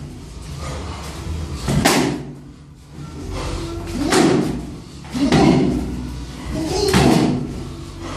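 Kickboxing sparring: kicks and punches landing with four sharp smacks, spaced one to two seconds apart.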